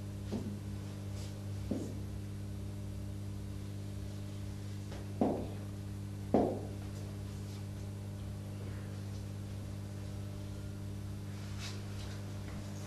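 Marker knocking against a whiteboard twice around the middle, with fainter taps of writing earlier, over a steady electrical hum.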